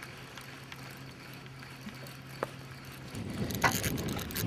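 A steady low hum, then from about three seconds in a spinning fishing reel being cranked, a dense gear rattle as line is wound in.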